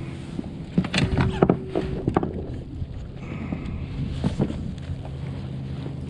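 A boat motor idling with a steady low hum, with sharp knocks and clicks from gear being handled on the boat about one to two seconds in and again around four seconds.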